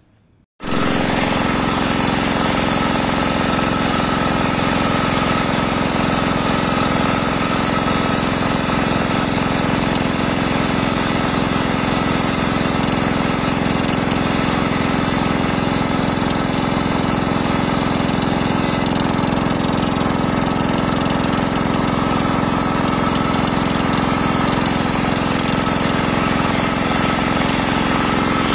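Two-wheel walking tractor's diesel engine running steadily, belt-driving a homemade circular saw bench. It starts abruptly about half a second in.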